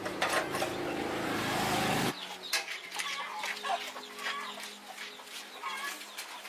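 Chickens clucking, with small birds chirping. For the first two seconds a motor runs and rises in level under them, then cuts off suddenly.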